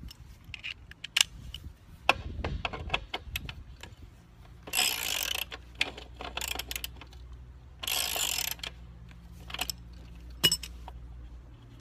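Socket ratchet wrench clicking as it works the bolts on a lawn mower's self-propel gearbox cover: two bursts of rapid ratchet clicking, about three seconds apart, among scattered metal clicks and knocks of the tool on the bolts.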